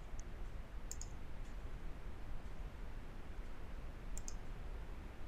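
Computer mouse clicking: a quick pair of clicks about a second in and another pair about four seconds in, over faint room hiss.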